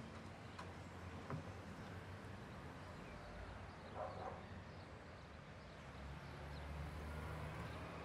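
Quiet outdoor ambience with a faint animal call about four seconds in and a few soft clicks early on.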